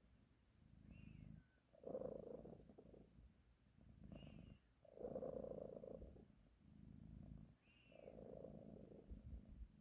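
Sleeping cat purring in time with its breathing: a soft low rumble that shifts between the in-breath and the out-breath every second or two. A faint short high squeak comes three times.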